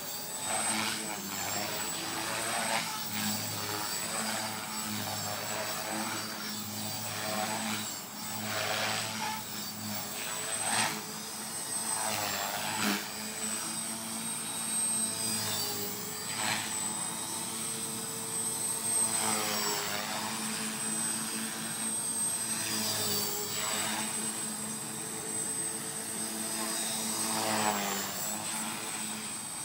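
T-Rex 450 electric RC helicopter in flight: a steady high-pitched motor whine over the chop of the spinning rotor blades. The sound swells and changes pitch several times as the helicopter swoops past.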